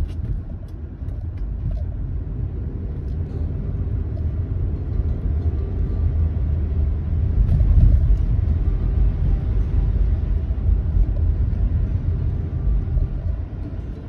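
Car driving, heard from inside the cabin: a steady low rumble of engine and road noise, louder for a moment about eight seconds in.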